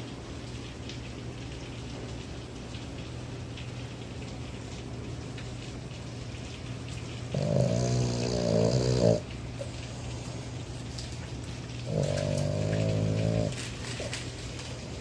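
Boston Terrier snoring in its sleep, sounding much like a person: two long pitched snores, each about one and a half to two seconds, the first about seven seconds in and the second about twelve seconds in. A steady low hum runs underneath.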